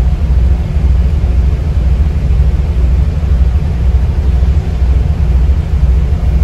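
Steady low rumble of an idling semi-truck engine, heard inside the sleeper cab.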